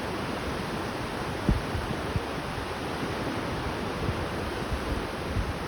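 Pacific Ocean surf breaking on a sandy beach: a steady wash of waves, with a couple of brief low thumps about a second and a half and two seconds in.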